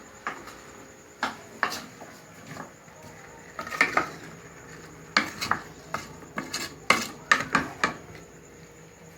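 Kitchen utensils and dishes clinking and knocking irregularly, with a quick run of clatter in the second half: pots, pans and cutlery being handled.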